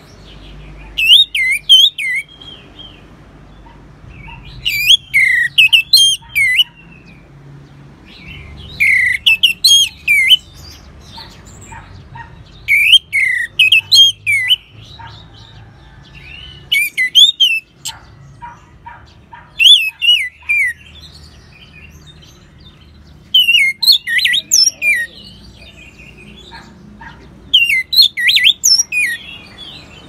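Orange-headed thrush (anis merah) singing in repeated loud phrases of rapid, gliding whistled notes, about one phrase every four seconds, each lasting a second or two.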